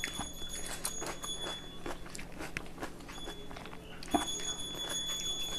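A person chewing food close to the microphone, with irregular wet mouth clicks and smacks; a sharper click about four seconds in.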